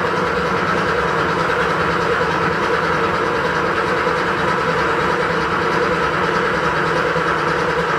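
Starter motor cranking the air-cooled flat-six of a 1986 Porsche 911 3.2 Carrera in a steady, even churn without the engine catching: on this first start the fuel lines are still empty, so it has to crank until fuel reaches the engine.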